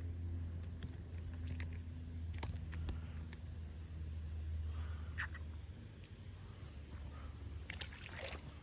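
Steady, high-pitched chorus of crickets trilling, with a few faint scattered clicks and a low hum that fades out about six seconds in.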